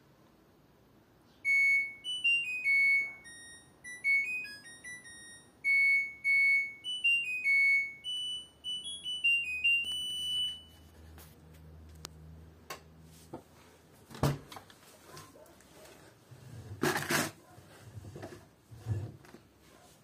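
LG Direct Drive washing machine playing its end-of-cycle melody, a tune of high electronic beeping notes lasting about nine seconds, which signals that the wash is finished. A low hum and a click follow, then the door is pulled open with a loud clunk about seventeen seconds in, followed by smaller knocks.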